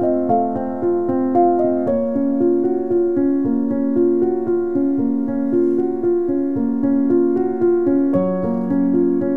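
Background piano music: a steady stream of notes, with the chord changing about two seconds in and again near the end.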